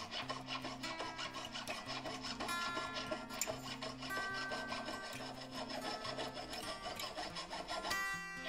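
A jeweller's hand tool working a piece of 18ct yellow gold braced on a wooden bench pin: a steady run of back-and-forth metal-working strokes, over background acoustic guitar music.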